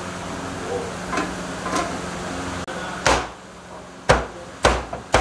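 Cleaver chopping jerk chicken on a chopping block: four sharp, heavy chops about half a second to a second apart, starting about three seconds in. Before them there is a steady background hum.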